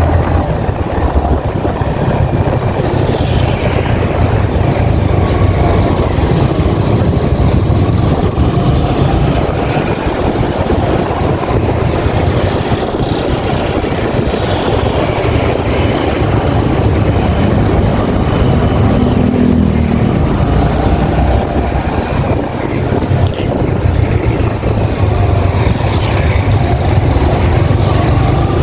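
Yamaha XSR 155's single-cylinder engine running steadily under way, its pitch rising and falling as the motorcycle speeds up and slows.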